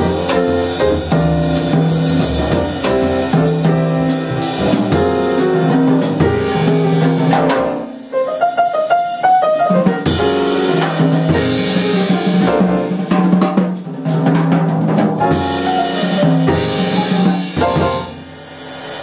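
Jazz piano trio of grand piano, upright double bass and drum kit playing the closing bars of a tune, with a short break about eight seconds in where the bass drops out. The band stops near the end and the last sound fades.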